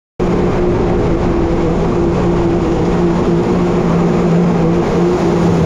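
Side-by-side UTV's engine running hard at steady high revs while ploughing through a mud bog, with the noisy rush of mud and water spraying over the vehicle.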